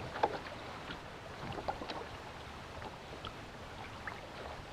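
Water lapping around a small boat's hull, with a few light knocks and taps, the sharpest about a quarter-second in.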